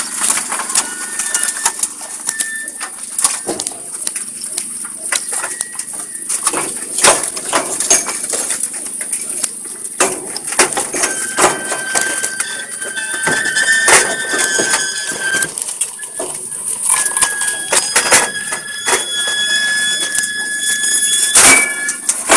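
Paver laying machine at work, with an irregular run of sharp metallic clicks and knocks over a steady high hiss. High squeaks are held for a second or more at a time in the second half.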